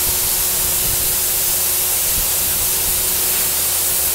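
Compressed air from a high-power air compressor blowing muddy water up out of a borewell during cleaning: a loud, steady rushing hiss, with a low steady hum underneath.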